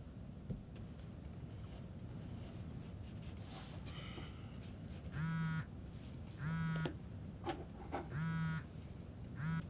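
Pencil scratching on drawing paper, then from about five seconds in a phone ringing in four short buzzing pulses as a call comes in.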